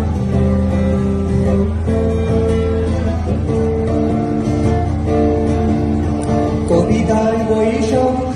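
Live band playing an instrumental passage of a Bengali song: an electric guitar plays held melody notes over a steady low bass.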